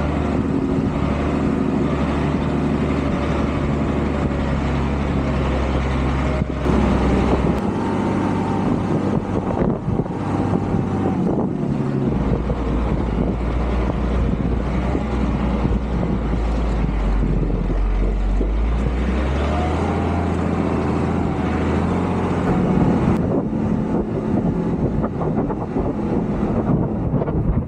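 Unimog U1300's six-cylinder diesel engine running under load as the truck drives through soft dune sand. Its revs shift up and down several times.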